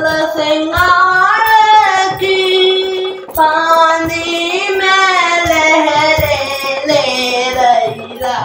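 Music: a woman singing a high, drawn-out melody with long, ornamented held notes, over a few soft drum beats.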